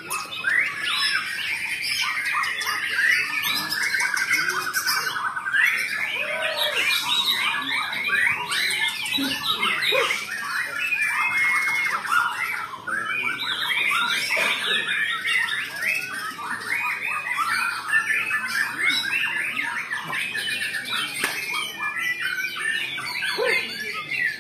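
Many caged white-rumped shamas singing at once on a contest rack: a dense, unbroken tangle of overlapping rapid songs and calls.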